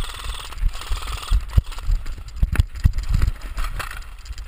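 A player running over dry brush and gravel: heavy footfalls thumping on a body-mounted camera, with gear rattling and rustling. Several sharp clicks or knocks come in the second half.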